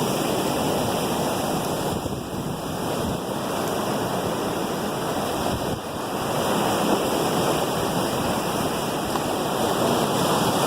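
Ocean surf breaking below, a steady wash of waves with gentle swells in level.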